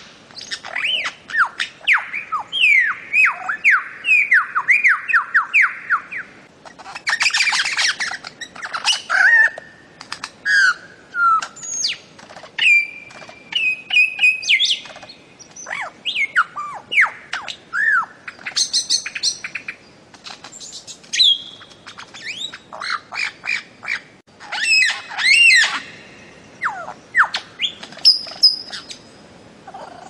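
Bird-of-paradise calling: long runs of quick, down-slurred whistled notes, broken by louder, harsher squawking calls about seven and twenty-five seconds in.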